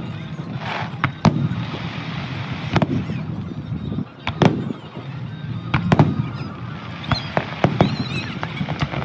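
Aerial fireworks shells bursting with sharp bangs, one every second or so at first and coming quicker, several close together, in the second half.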